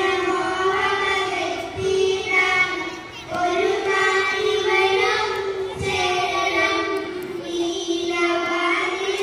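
A child singing, holding long notes with short breaks between phrases.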